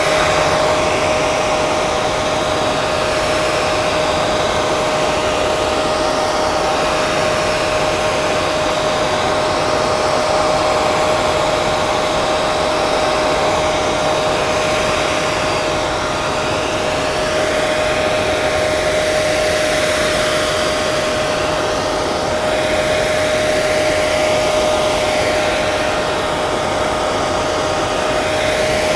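Handheld hair dryer running continuously: a steady rush of air with a constant motor whine, and a slow swirling shift in the hiss.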